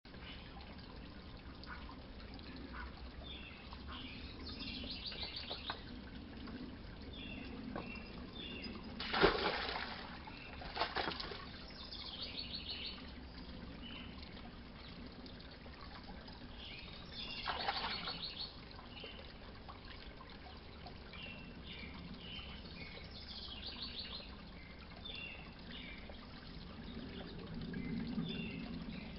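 A Chesapeake Bay Retriever splashing and wading in a shallow garden pond, with a loud splash about nine seconds in, another around eleven seconds and a third near eighteen seconds. Small birds chirp throughout.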